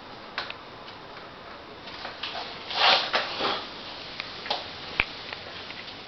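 Olympia SG3 typewriter's mechanism giving scattered light clicks, with a louder brief clatter about three seconds in and a single sharp click about five seconds in.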